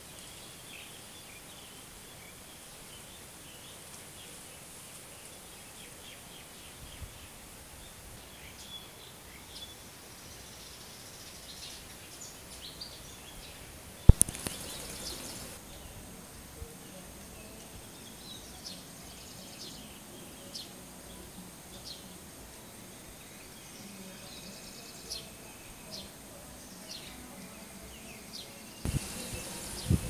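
Outdoor background with faint, scattered short high chirps of small birds. A single sharp click comes about fourteen seconds in, and the noise grows louder just before the end.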